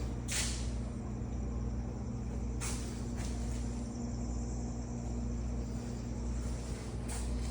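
A steady mechanical hum with about three short bursts of hissing a few seconds apart.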